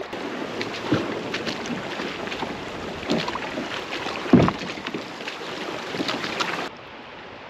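A plastic fishing kayak towed on a rope through rocky creek shallows: scattered knocks and scrapes, with one heavier thud about four seconds in, over moving water and wind on the microphone. It drops to a quieter water hush near the end.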